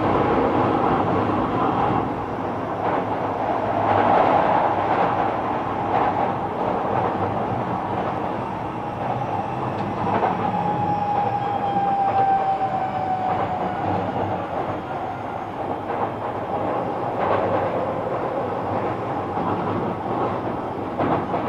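Kobe City Subway 6000 series train running, with the wheel-and-rail noise and occasional knocks over rail joints. About ten seconds in, the whine of its Hitachi hybrid-SiC inverter and traction motors glides down in pitch as the train slows.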